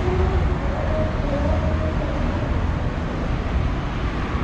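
Steady low rumble of traffic on a city street.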